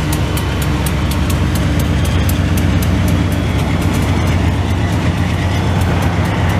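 CN freight train's diesel locomotives passing close by, their engines running with a steady low drone and a faint whine, then the autorack cars rolling past. Wheels click rapidly and evenly over the rail joints, lighter in the second half.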